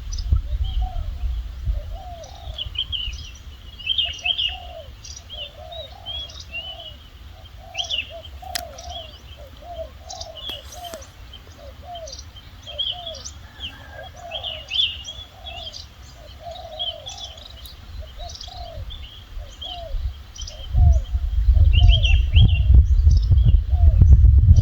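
Birds calling: a quick run of short, low calls, about one or two a second, under high chirps from small birds. A low rumble comes in near the end.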